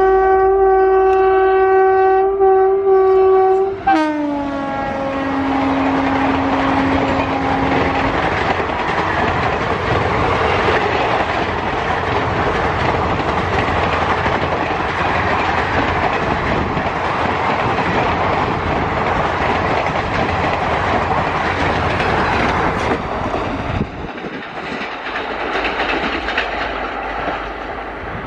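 A WAP-7 electric locomotive sounds a long steady horn as it approaches at speed. Its pitch drops about four seconds in as it passes, and the horn tails off a few seconds later. The coaches then rush past with clattering wheels on the rails, growing quieter near the end.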